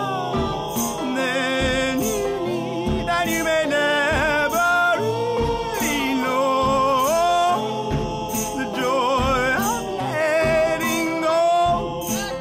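Music: a song with a steady drum beat under a wavering sung melody without clear words.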